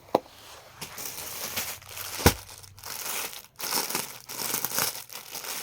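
Crinkling and rustling as suits and dupattas are handled and unfolded, with two sharp knocks: one just after the start and a louder one a little past two seconds in.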